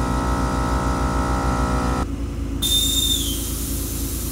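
Viair air-suspension compressor running with a steady, pulsing hum, which cuts off about two seconds in. A hiss of air with a high whistle follows as air is let out of the suspension.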